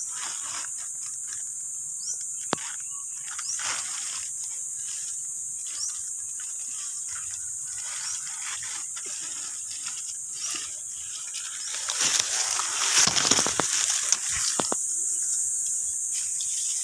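Dry banana leaves rustling and crackling as they are pushed aside, loudest for a couple of seconds about twelve seconds in, over a steady high drone of insects.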